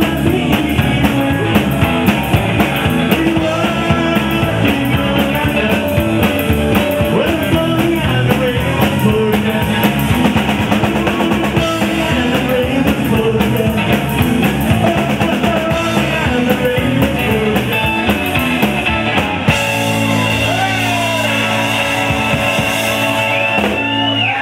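Live rock-and-roll band of electric guitar, electric bass, drum kit and vocals, playing an up-tempo number with a steady drum beat. About twenty seconds in the drums stop and the band holds a ringing chord while the guitar bends notes.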